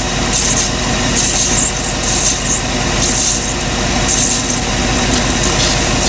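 A 1998 Chevy 5.7 V8 idling with irregular bursts of hiss about once a second as water is poured over the upper intake manifold at the fuel injector seal. The water is finding a lean-running vacuum leak at a rolled or torn injector O-ring.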